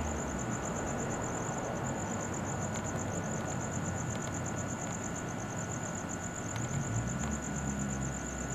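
Crickets chirping in a steady, even pulse, over a low rumbling hum that swells a little about seven seconds in.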